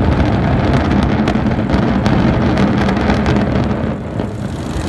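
Rumble of a concrete high-rise apartment tower collapsing in an implosion demolition: a dense, loud, low rumble with scattered sharp cracks, easing off about four seconds in.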